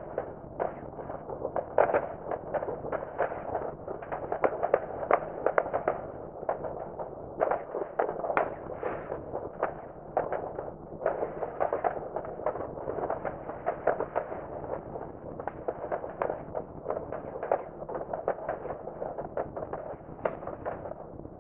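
Many distant fireworks going off at once: a dense, unbroken patter of overlapping bangs and crackles, with a few louder bangs standing out now and then.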